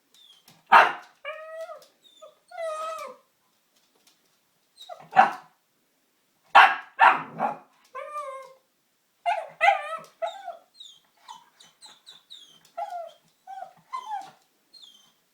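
Eight-month-old pug puppy barking in a few loud, sharp barks, with short whining yips in between that become a quick string of yips in the second half.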